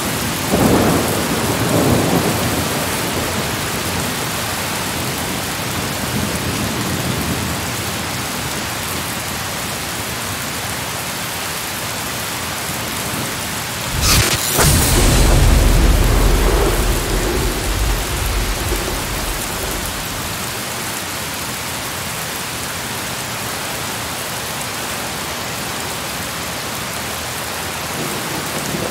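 Steady rain, with a sharp crack of thunder about halfway through that rolls on as a deep rumble for a few seconds.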